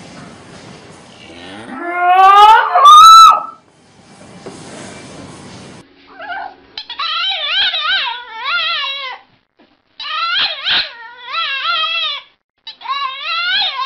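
Animal calls: one loud call that climbs steeply in pitch, then after a short gap a run of high, wavering, howl-like cries in short phrases with brief pauses between them.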